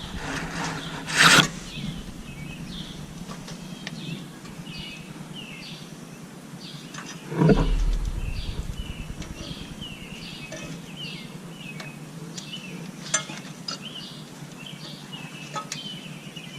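Birds chirping repeatedly against a steady low hum, with sounds of hands working on parts: a sharp clatter about a second in and a heavier rustling knock about halfway through.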